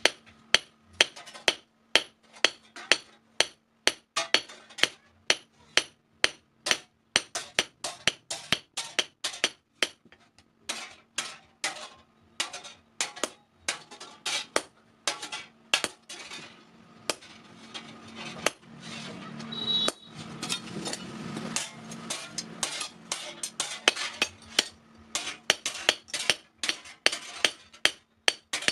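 Hand hammer striking metal on an anvil in forging, a steady run of ringing blows about two a second, thinning out for a few seconds past the middle.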